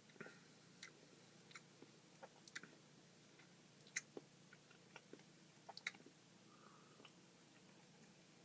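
Faint, scattered wet mouth clicks and lip smacks of someone tasting a sip of beer, with one sharper click about four seconds in.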